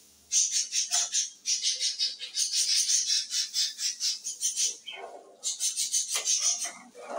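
Raw rice being added to a steel pot of simmering dal water and pushed in with a ladle: a fast granular rattle and hiss in several runs with short breaks, with a few metal clatters in the second half.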